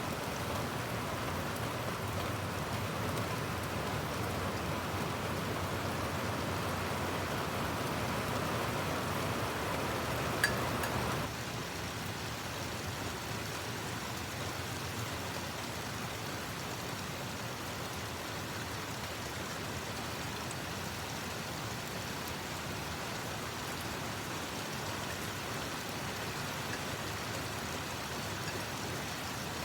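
Steady rain falling, an even hiss of drops. There is a single sharp click about ten seconds in, after which the rain is a little quieter.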